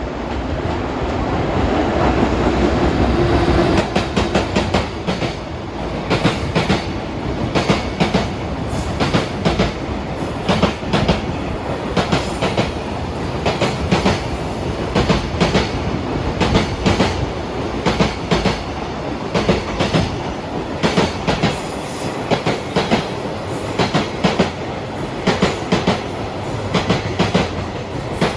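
JR Freight EF210 electric locomotive and its train of container flatcars passing at speed. After a swelling approach, the wagons' wheelsets clatter over the rail joints in groups of clacks repeating about every second and a half.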